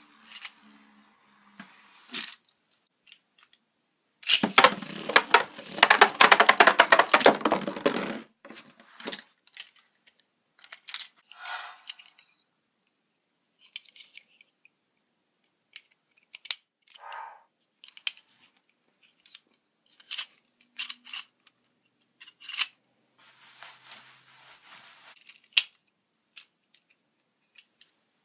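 Plastic toy parts and packaging being handled: scattered sharp clicks and snaps, with a dense burst of rapid crackling and rattling about four seconds in that lasts some four seconds.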